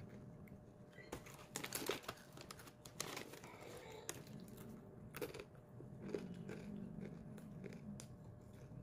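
Faint, irregular crunches and crinkles close to the microphone, over a low steady hum.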